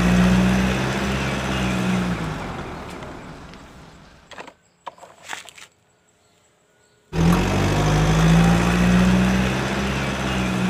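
Truck engine sound effect: a deep steady engine hum with a rumble that fades away over a few seconds, then cuts in again abruptly about seven seconds in and starts fading once more.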